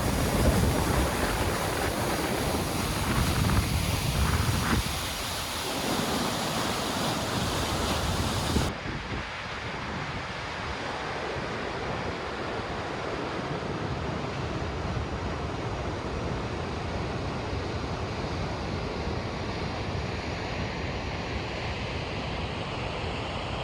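Rushing water of a waterfall, a steady rush. Gusts of wind buffet the microphone for the first nine seconds or so; then the sound changes abruptly to a smoother, duller rush.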